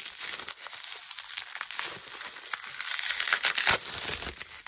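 Plastic packaging being crinkled and torn open by hand, a dense crackling that grows louder about three seconds in. Afterwards it is called loud.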